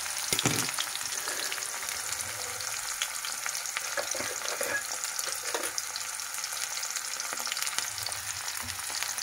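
Chopped onions, cumin seeds and ginger-garlic paste sizzling in hot oil in a kadhai: a steady hiss with many small crackles and pops as the onions fry towards brown.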